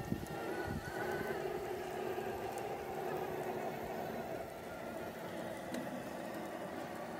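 Axial SCX6 1/6-scale RC rock crawler's electric motor and geared drivetrain whining steadily as it crawls up bare rock. There are a couple of knocks in the first second.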